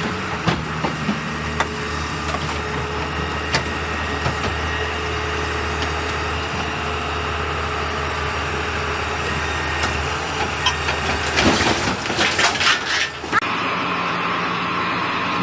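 A heavy vehicle engine running steadily, with scattered sharp clicks and a dense run of cracking and snapping about three-quarters of the way through.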